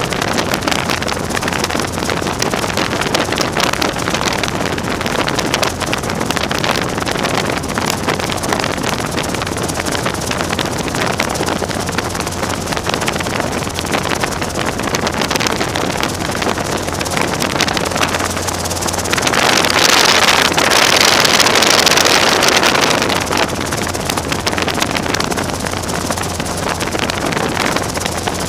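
Robinson R22 helicopter's piston engine and rotor running steadily, heard with wind buffeting the microphone. A louder rush of wind noise swells from about two-thirds of the way in and lasts about four seconds.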